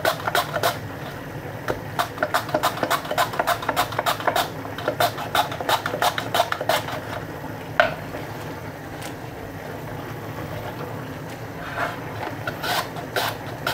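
Potato being sliced thin on a handheld mandoline: quick rasping strokes over the blade, several a second. The strokes pause for a few seconds in the middle, then a few more come near the end.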